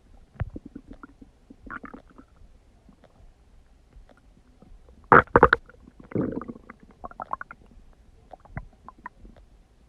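A person's stomach gurgling and rumbling as it digests, in irregular bursts. The loudest is a cluster of gurgles about five seconds in, followed by a longer run of smaller gurgles.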